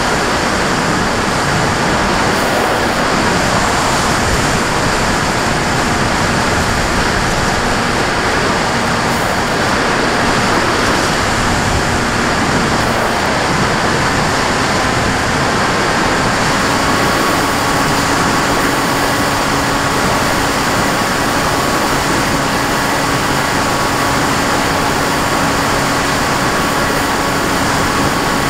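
Radio-control FPV aircraft's motor and propellers running steadily under a heavy rush of wind, as picked up by its onboard camera; the motor tone steps slightly higher a little over halfway through.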